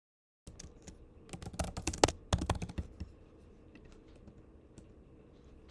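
Typing on a computer keyboard: a quick flurry of keystrokes over the first few seconds, then a few scattered clicks.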